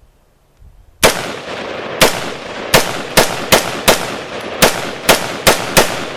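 Rapid gunfire: about ten shots in quick, uneven succession, starting about a second in, some under half a second apart, too fast for a bolt-action rifle.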